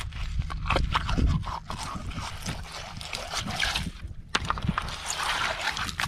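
Gloved hand digging among beach cobbles, the rounded stones clacking and scraping against each other in wet sand and shell, in a string of irregular knocks.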